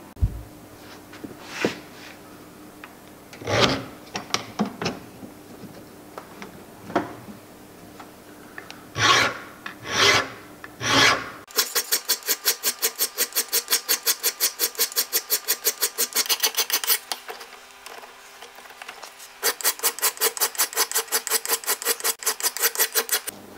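Coarse hand file rasping across a cast iron casting held in a bench vise, taking off the hard casting scale. A few separate strokes come seconds apart at first. About halfway in it turns to quick, even strokes, about five a second, with a short break near the end.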